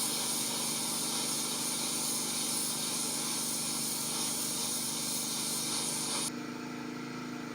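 Gas-engine pressure washer running, its jet of water spraying with a steady hiss that cuts off suddenly about six seconds in as the spray stops, while the engine keeps running.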